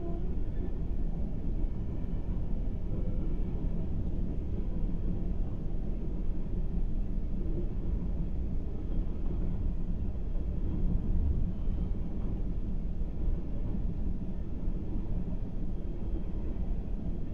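Freight train of coal gondola cars rolling past a grade crossing, a steady low rumble heard from inside a car's cabin.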